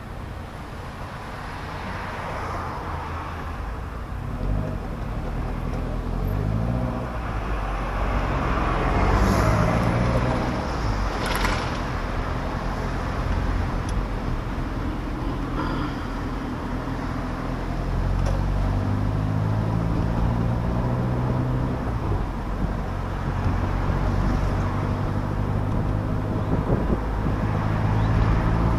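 1994 Saab 900 S Cabriolet's engine pulling away and accelerating through the gears, its pitch climbing in steps, then running steadily at cruise. The open top lets in wind and tyre noise, and a couple of sharp clicks come about a third of the way in.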